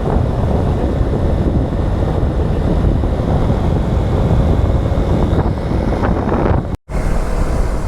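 Strong wind buffeting an action camera's microphone, a dense, unbroken low rumble. The sound drops out completely for a moment near the end.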